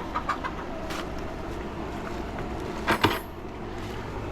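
A few light clicks, then a sharper clink about three seconds in, over a steady low hum.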